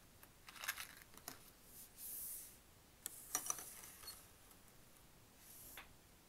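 Soft handling clicks and light metallic clinks as a small brass tealight carousel with hanging owl ornaments is lifted and moved. A brief high tinkle of its thin metal parts comes a little past three seconds in.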